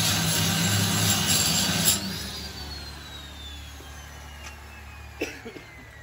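Angle grinder grinding steel pipe, switched off about two seconds in; the disc then winds down with a slowly falling whine.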